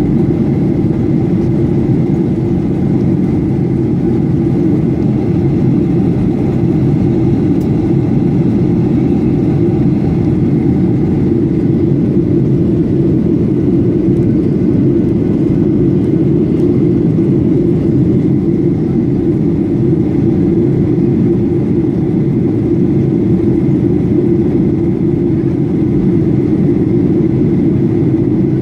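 Steady cabin noise inside a Boeing 737-800 during descent: a constant low rumble of its CFM56 jet engines and rushing air, with a faint steady whine above it.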